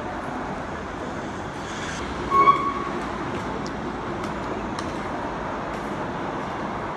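Steady rumbling ride noise of a moving vehicle, with one brief, louder, higher sound about two and a half seconds in.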